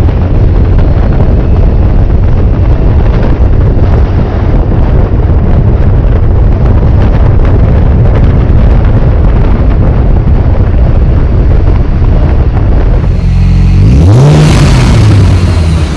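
Supercharged V6 of a Dodge Charger running on the road, mostly buried under wind buffeting the microphone. About thirteen seconds in, the engine note comes through clearly, rising in pitch as it revs and then falling back.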